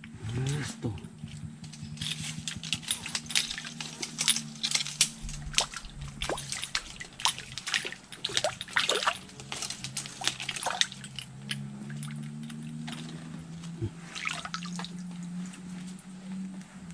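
Small, sharp water splashes and drips at the pool's surface around a fishing float, thickest in the first half, from fish snapping at the bait. A low steady hum runs underneath.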